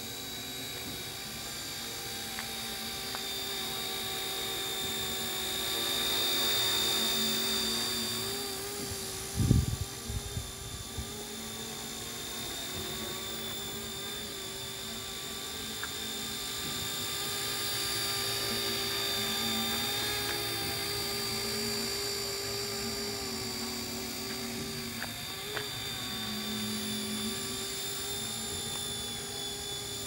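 Homemade remote-control model helicopter in flight, its motor and rotor making a steady high whine that swells and fades as it flies around: loudest about six to seven seconds in and again around twenty seconds in. A brief low rumble comes in about ten seconds in.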